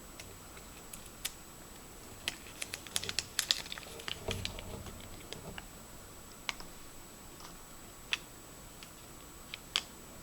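Small plastic clicks and taps from handling a toy from a Kinder Surprise egg: a quick run of clicks about two to four seconds in and a dull knock just after, then a few single clicks.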